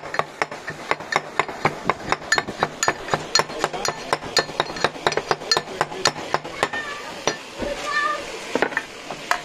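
A pestle pounding chopped onion in a heavy black mortar: rapid, evenly spaced strikes, about three to four a second, stopping about seven seconds in, with one more strike near the end.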